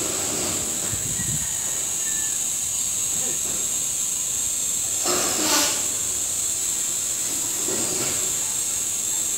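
Cicadas in the surrounding trees, a steady high-pitched drone. About five seconds in, a brief louder sound rises above it.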